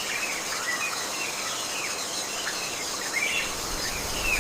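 Tropical forest ambience: a steady high drone of insects with short, scattered bird chirps throughout. A low rumble comes in near the end.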